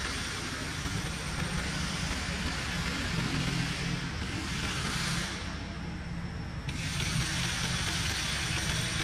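Steady outdoor background noise: a low rumble under a high hiss, with the hiss dropping away for about a second and a half a little past the middle.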